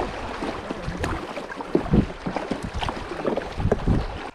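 Choppy river water rushing and slapping against a canoe's hull as it runs through fast riffles, with many irregular low thumps and splashes.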